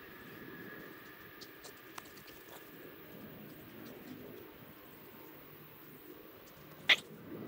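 Quiet outdoor background with a few faint ticks, then a single sharp click near the end.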